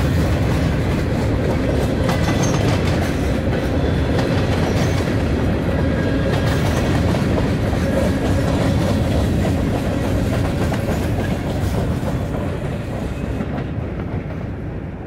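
Freight train's covered hopper cars rolling past on the rails in a steady run of wheel noise, growing fainter near the end as the last cars move away.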